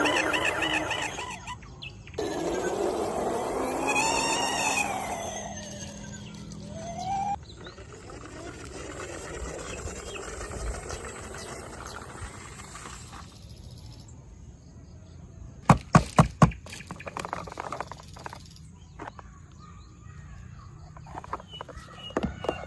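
Electronic toy vehicle sounds: a warbling siren and a rising-and-falling wailing tone for the first several seconds, then quieter rustling with a quick run of four sharp plastic clicks about two-thirds of the way in and a few more clicks near the end.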